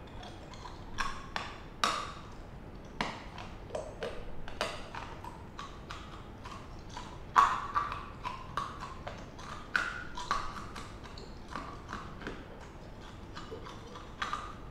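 Hard candy being crunched between the teeth, a bitten-off chunk of a giant homemade lollipop made from melted-down lollipops, in irregular sharp cracks and clicks one to three times a second.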